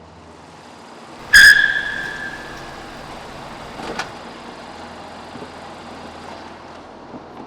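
A single loud struck ding about a second and a half in, ringing out over about a second, then a short click near four seconds, over a steady low background noise.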